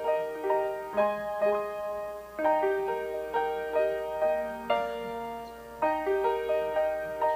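Piano playing a slow, gentle passage of arpeggiated chords, each note struck and left to ring.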